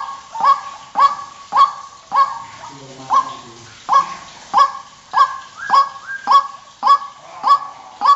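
White-breasted waterhen calling its monotonous 'kru-ak' over and over, about two calls a second, each a sharp note sliding down in pitch.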